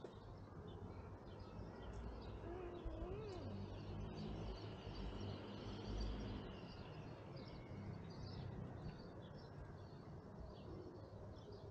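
Small birds chirping on and off over a low, steady outdoor rumble, with a brief wavering call about three seconds in.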